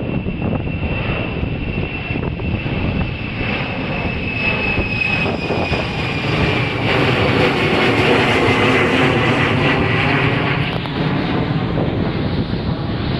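An airplane taking off: its engines run loudly, growing louder toward the middle, with a high whine that falls slowly in pitch as it goes.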